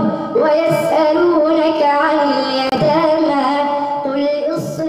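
Melodic Quran recitation by a single voice in tajwid style, holding and ornamenting long drawn-out notes that glide up and down.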